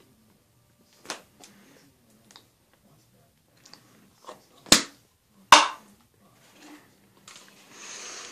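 A handful of short, sharp clicks and smacks, two louder ones close together about five seconds in, with a brief hiss near the end.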